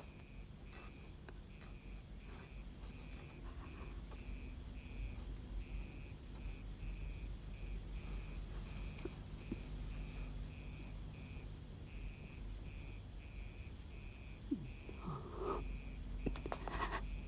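Cricket chirping steadily, about two short chirps a second, over a low hum. Near the end a woman makes a few brief sobbing sounds.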